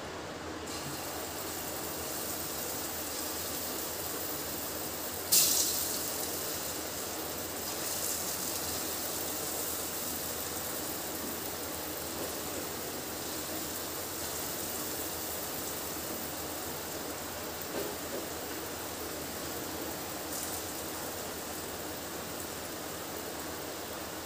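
Moong dal batter frying in hot oil in a kadhai, with a steady sizzling hiss. About five seconds in, a sharp burst of sizzling fades over a second or so as batter is dropped into the oil, and there is a smaller burst near the end.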